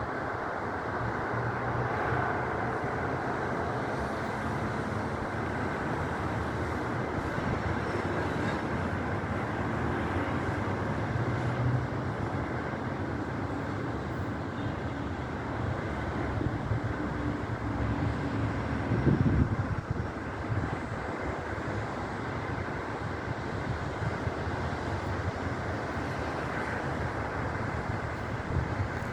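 Strong wind blowing in gusts and buffeting the phone's microphone as a steady rushing rumble, with a stronger gust about two-thirds of the way through.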